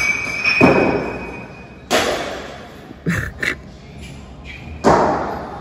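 Sledgehammer blows smashing junk: three heavy impacts about a second and a half apart, with two quick sharp knocks between the second and third, each echoing in the room.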